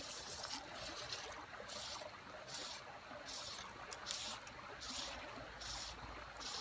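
Faint trickle of shallow creek water, with soft hissing swishes that repeat roughly every three quarters of a second.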